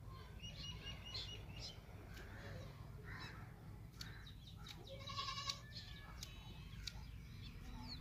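A goat bleats briefly about five seconds in, with small birds chirping faintly in the background.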